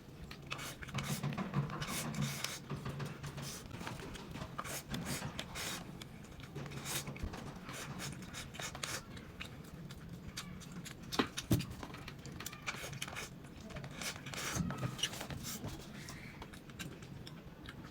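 Close-miked eating sounds: chewing and mouth clicks, with many short crisp crunches and smacks.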